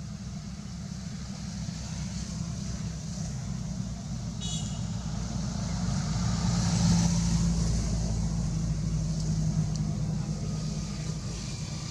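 A motor vehicle's engine passing: a low rumble that grows louder to a peak about seven seconds in and then fades away.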